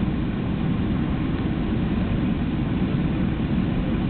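Car driving slowly, heard from inside the cabin: a steady, low road and engine noise.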